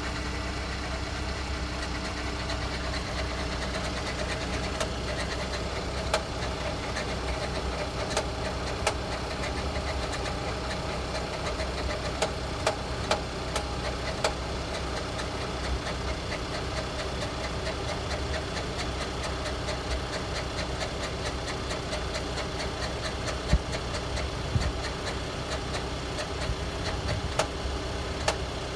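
Mercedes-Benz E200's M274 turbocharged four-cylinder petrol engine idling cold, with an irregular scatter of sharp knocks and clicks over the steady running sound. The owner finds the knocking and squeaking stop when the heater fan is switched off, which points to the heater or fan rather than the engine itself.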